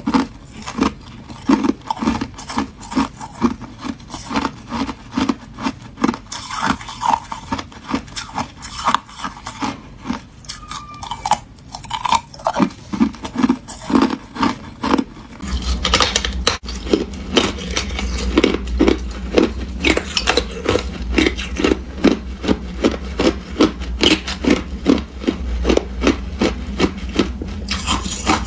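Ice being chewed close to the microphone: crisp crunches in a steady rhythm of about two a second. About halfway through, a low hum comes in under it and the crunches come a little faster.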